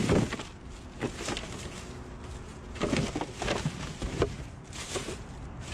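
Plastic parts and boxes clattering and rustling as they are handled and shifted in a dumpster, with irregular knocks and clicks.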